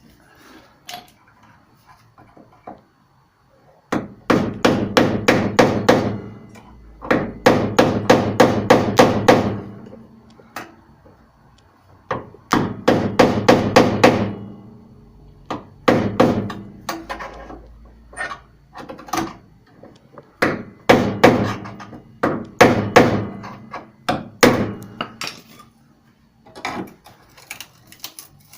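Hammer blows on the sheet steel of a Simca Aronde's sill and B-post area, knocking apart layers of welded panel. They come in quick runs of about six strikes a second, each run lasting one to two seconds, with short pauses between them.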